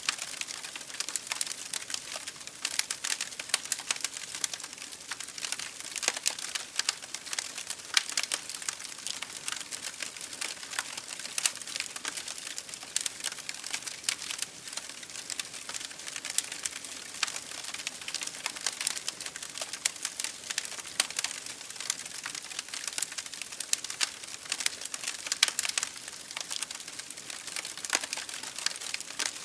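Open wood fire in a fireplace burning steadily, with a soft hiss and a constant scatter of sharp crackles and pops from the burning logs.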